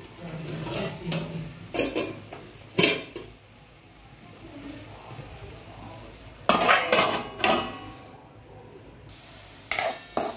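A steel spoon clanking and scraping against an aluminium kadhai in short runs of clatter, with a denser run a little past halfway and more near the end as the mushrooms are stirred.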